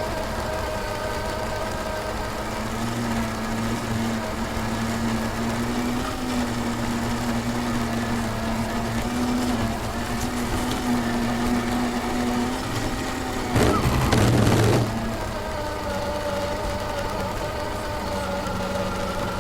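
Steady whine over a low hum, picked up by the onboard camera of a brushless-motored Axial SCX10 II RC crawler truck. About 13.5 s in, a louder rough burst lasts a little over a second before the steady whine returns.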